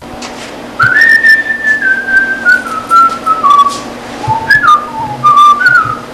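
A person whistling a tune with the lips, the notes mostly stepping downward and then jumping back up for a few notes near the end, with a few light clicks alongside.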